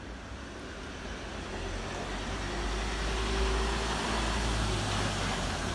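A car approaching along a narrow street, its engine rumble and tyre noise growing steadily louder.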